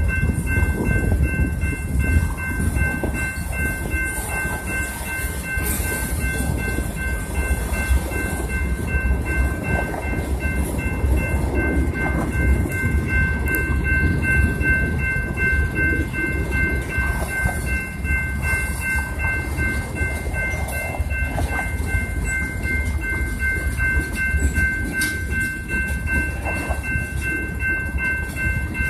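Freight train of tank cars and covered hopper cars rolling through a grade crossing, its wheels rumbling and clacking over the rails. Over it the crossing's warning bell rings on without a break, a steady high ringing.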